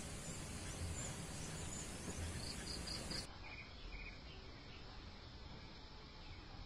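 Faint outdoor rural ambience: insects chirping, with a few short high chirps a little under halfway through.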